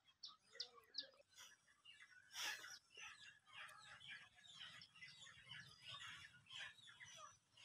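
Faint chirping of small birds, many short calls over near silence.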